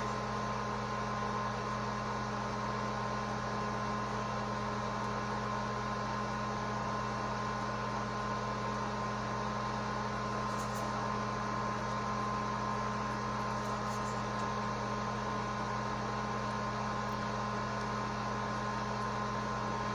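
Steady background hum made of several constant tones over a faint hiss, with a couple of faint ticks.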